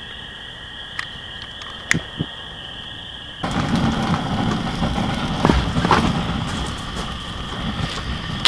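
Split firewood knocked a few times against a steel fire pit over a steady high-pitched night background. About three and a half seconds in, a cut to a wood fire blazing in the pit, a loud rushing noise dense with crackles and pops.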